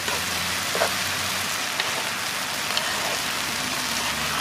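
Noodles and sausage slices sizzling in oil in a wide pan: a steady hiss, with a few light taps of the fork and ladle against the pan.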